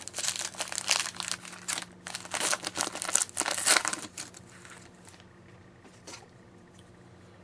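A hockey trading-card pack's wrapper being crinkled and torn open for about four seconds. After that come quieter handling sounds, with a single small click near the end.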